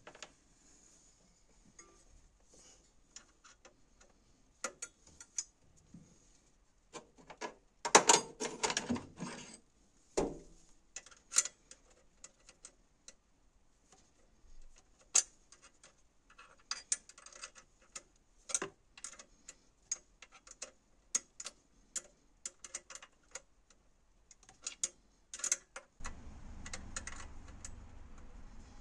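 Hand tools on the bolts of the EGR pipe flange: a socket ratchet clicking in short runs, with metal clinks and a louder burst of rattling about eight seconds in. A steady low hum comes in near the end.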